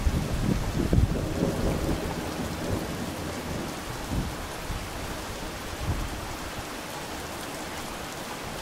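Heavy rain pouring down steadily during a thunderstorm, with a low rumble of thunder dying away over the first couple of seconds.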